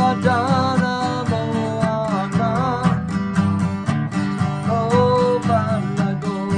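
Devotional music: an acoustic guitar strummed in a steady rhythm, with a melody above it that bends in pitch.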